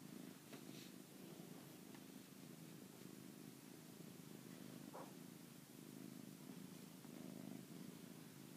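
Domestic cat purring steadily, a faint low rumble.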